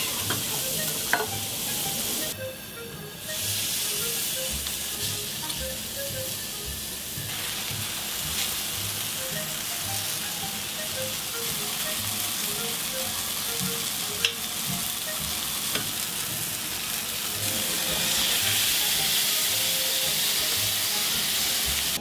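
Hamburger patty sizzling steadily on a hot flat-top griddle, with background music underneath. The sizzle breaks off for about a second, a little after two seconds in.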